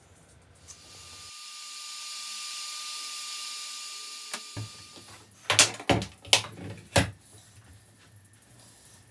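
A hiss with a thin steady tone swells and fades over a few seconds. Then come four or five sharp clicks and knocks as tools and a plastic case of router bits are handled on a workbench.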